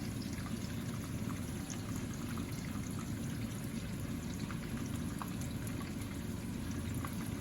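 Chicken pieces frying in a pan: a steady sizzle with scattered small crackles, the chicken being browned before soup is added.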